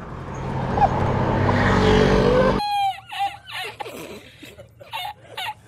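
Motor scooter engine running under way, growing louder, then cut off suddenly about two and a half seconds in. After the cut come a few short, high-pitched voice-like sounds from an inserted meme clip.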